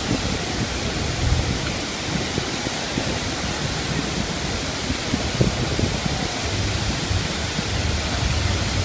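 Waterfall cascades of the Iguazu Falls heard close up: a steady, dense rush of falling water with a low rumble underneath.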